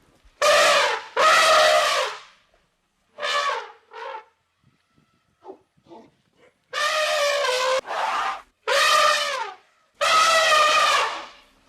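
A series of loud, pitched animal calls, each about half a second to a second long: a few in the first four seconds, then a pause, then several more back to back.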